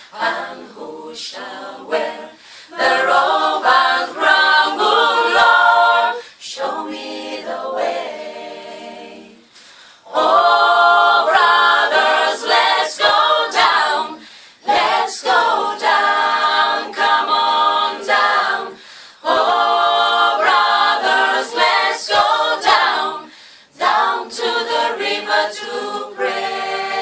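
Choir singing a cappella in phrases broken by short pauses.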